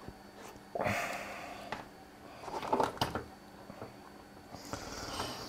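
Handling noises from a bench instrument's switch-mode power supply and its cabling: brief rustles, with a single sharp click about three seconds in.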